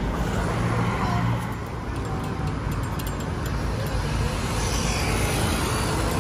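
Steady roadside traffic noise with a low running engine hum, and a few faint light clicks about halfway through.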